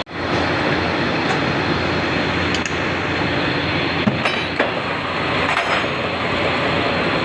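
Steady mechanical running noise with a few metallic clinks about four seconds in.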